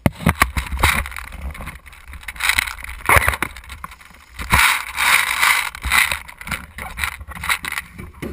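Irregular knocks, scuffs and rustling from handling and movement, the gun-mounted action camera being jostled against gear.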